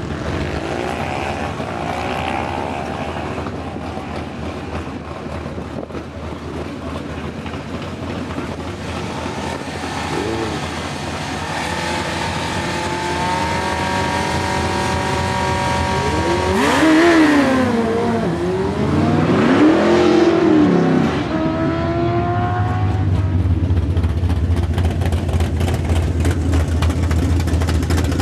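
Stock 2006 Suzuki GSX-R1000's inline-four engine at a drag strip: a short rev about two seconds in, then held at high revs on the start line. About halfway through it launches, its pitch climbing and falling twice as it pulls away down the track. Near the end a steady low engine hum is left.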